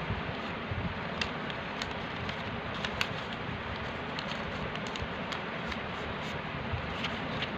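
Steady background hiss with a few short crackles and clicks of a sheet of notebook paper being handled and creased while it is folded.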